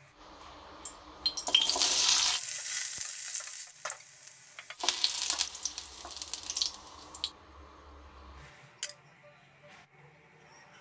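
Garlic and onion pieces sizzling as they fry in a steel kadai, in two loud bursts a few seconds apart, the second one longer.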